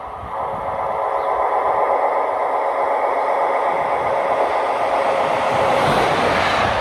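DB class 111 electric locomotive hauling a train along the track, a steady rushing of wheels on rails that grows louder as it approaches and is loudest as the locomotive passes close by about six seconds in.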